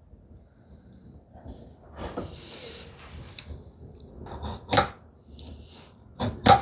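Hand tools and a wooden workpiece handled on a workbench: a short scrape a couple of seconds in, then several sharp knocks of wood and tools set down, the loudest near five seconds and at the very end.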